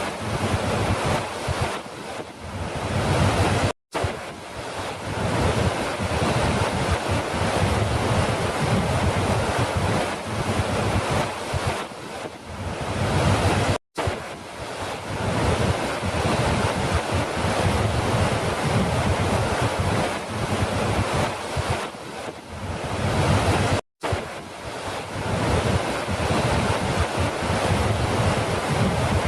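Continuous rush of falling water, a steady dense roar with small surges. It cuts out for an instant three times, about ten seconds apart, where the looped recording restarts.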